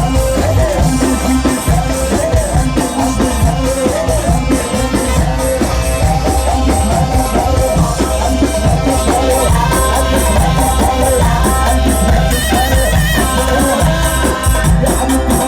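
Loud Egyptian sha'bi dance music with a dense, fast beat and a held melody line, without clear vocals.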